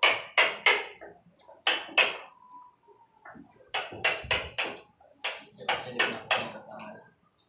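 Hammer blows on the wooden door during a lockset installation, struck in quick runs of two to four with short pauses between.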